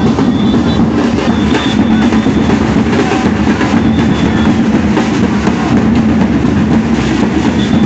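A street drum band of large marching drums plays a fast, continuous pounding beat, with a few short high whistle-like tones over it.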